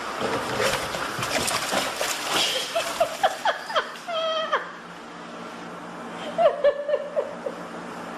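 Water splashing for the first few seconds, then a person laughing in short repeated bursts, twice.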